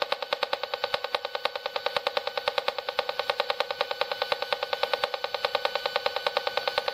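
Handheld RF meter's speaker giving a steady, rapid buzzing click, about ten pulses a second: the audio rendering of a WiFi router's beacon signal that the meter is picking up.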